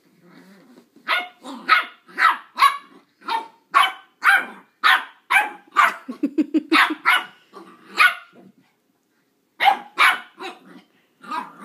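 Chihuahua puppy barking in a rapid string of short, high-pitched barks, roughly two a second, with a brief low growl about six seconds in and a short pause near the end before the barking resumes.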